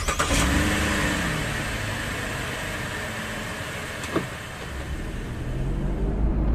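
Car sound effect: steady engine and road noise, with one short click about four seconds in and a low engine rumble swelling near the end.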